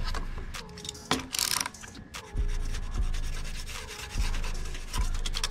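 Rubbing and scraping on the hard plastic of a scooter's under-seat boot, as a hot soldering gun tip is worked around a hole melted through it and a utility knife blade trims the melted edge. There is a brief, louder scrape about a second in.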